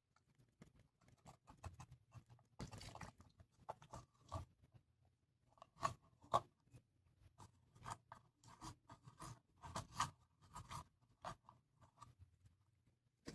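Gooey slime being poked and squished with a stick: quiet, irregular sticky crackles and clicking pops, coming thicker about halfway through.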